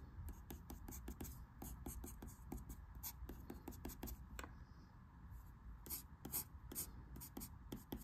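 Wooden pencil scratching on paper in quick, short strokes, with a brief pause about halfway.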